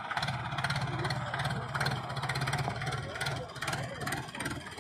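Farm tractor's diesel engine running steadily at low revs as the tractor drives past.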